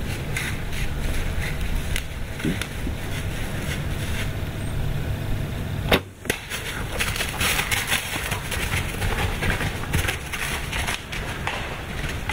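A recurve bow shot at a deer at close range: one sharp snap of the string and arrow about six seconds in, followed by scattered crackling and rustling in dry leaves and brush as the hit buck runs off.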